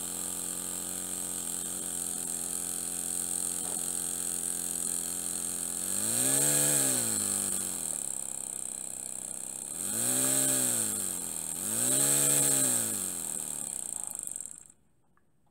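Miniature single-cylinder double-acting model steam engine running fast on compressed air: a high, steady buzzing whir with a strong hiss of escaping air. Three times its pitch swings up and back down as the speed rises and falls, and it stops abruptly about a second before the end.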